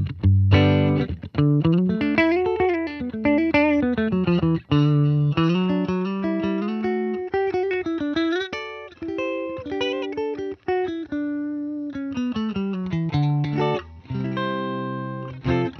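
Electric guitar played through a Fender Tone Master Princeton Reverb amplifier, a melodic passage of single notes with some bends over held low notes. Fuller repeated chords come near the end.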